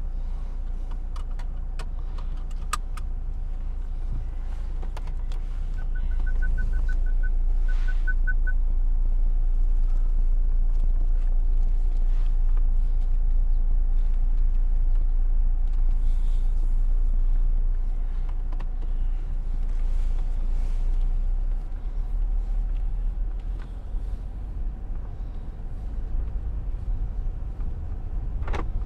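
Steady low rumble of a car driving, growing louder for about twelve seconds in the middle. About six seconds in comes a quick run of high electronic beeps, two short series with a brief gap.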